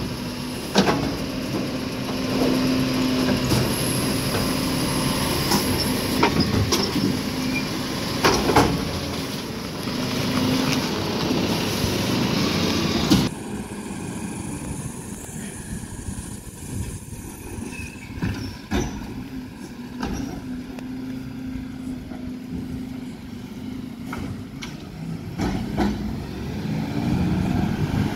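Side-loading garbage truck's automated arm lifting and emptying a wheelie bin: a steady engine and hydraulic whine with a few clanks of the bin against the arm and hopper. About halfway through, the sound drops to the quieter diesel engine of the truck driving up the street, rising in pitch near the end.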